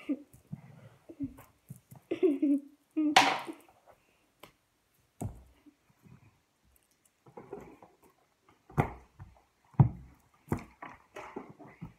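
A boy's short vocal sounds about two and three seconds in, then scattered light knocks and taps as toys are handled and set down on a carpeted floor.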